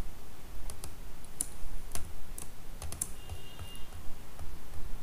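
Scattered sharp clicks of a computer mouse and keyboard, with a faint brief high tone a little after three seconds in.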